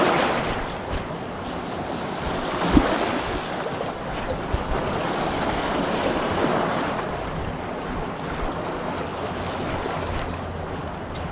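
Small sea waves washing and swelling against a rocky boulder shore, with wind buffeting the microphone. There is one low thump about three seconds in.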